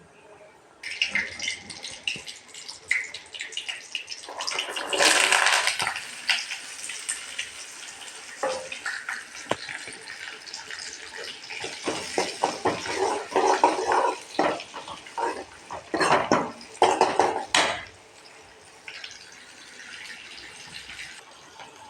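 Kitchen tap running in bursts, with clattering of utensils and dishes being handled at the sink; the water and clatter stop shortly before the end.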